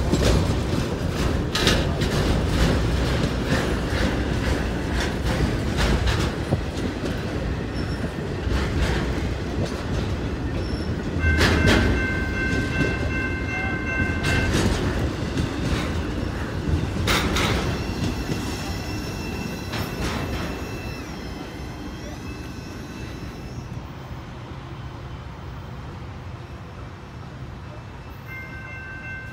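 Intermodal freight train's spine cars rolling past close by: a steady heavy rumble of wheels on rail with occasional sharp clacks. A high-pitched wheel squeal sets in twice in the middle and briefly again near the end. The rumble fades over the last several seconds.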